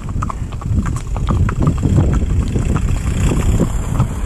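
Horses' hooves clip-clopping steadily on a tarmac road, with a car driving up and passing close alongside the horses.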